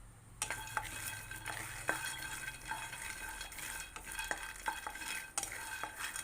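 Raw peanuts dry-roasting in a pan and being stirred with a spatula: scraping and frequent clicks of the nuts against the pan, starting about half a second in.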